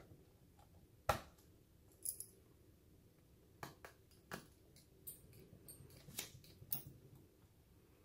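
Scattered small clicks and taps from a screwdriver tightening the screws of a Lenovo ThinkPad E15's bottom cover, the sharpest click about a second in and a run of lighter ticks later on.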